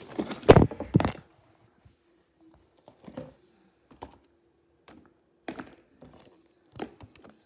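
Handling noise on a table: a few loud knocks and clatters in the first second, then scattered light taps and clicks about once a second.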